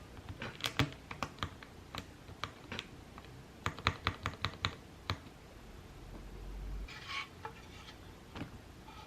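Keystrokes on a QK65 custom mechanical keyboard fitted with lubed Gateron Milky Yellow linear switches: scattered single presses, then a quicker run of about eight keystrokes around the middle. The keys have a hollow ring that the builder hears as reverberation inside the case.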